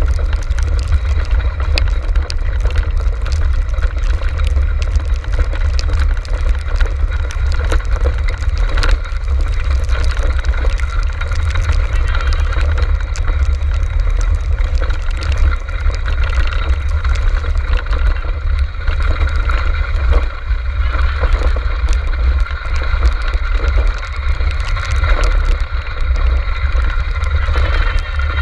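Dogsled racing cart rolling over a grass trail behind a six-dog team, with a constant heavy low rumble and rattle as heard from a camera mounted on the cart.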